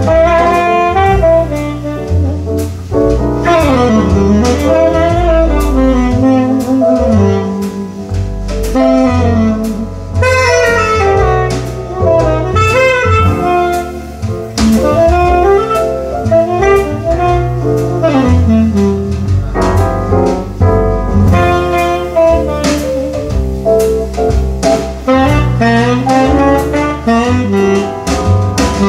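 Jazz saxophone solo weaving a melodic line over walking bass and drums, in an instrumental break of a jazz vocal song.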